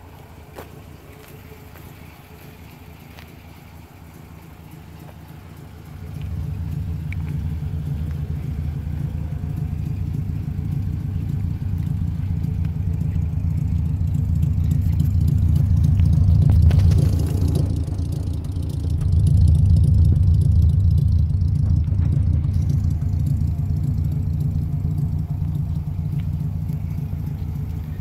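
1954 Ford Crestline's engine idling smoothly, a steady low exhaust rumble. It grows louder about six seconds in and is loudest around the middle, when the rear of the car is nearest.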